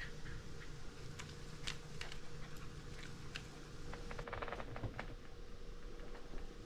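A puppy's light clicks and taps on a tiled floor and mat as it tugs and mouths a rope tug toy, with a quick flurry of clicks about four and a half seconds in, over a faint steady hum.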